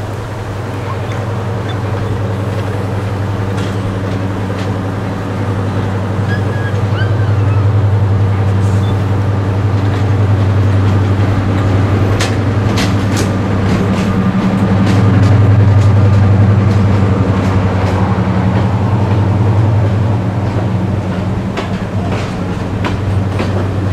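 Class 55 Deltic diesel locomotive, with its two Napier Deltic two-stroke opposed-piston engines, running with a steady low drone. The drone grows louder as the locomotive approaches and passes close by, peaking about two-thirds of the way through. From about halfway, sharp clicks come from its wheels and the coaches' wheels crossing the rail joints.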